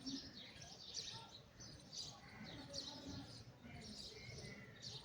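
Small birds chirping, a dense run of quick, overlapping high chirps several times a second.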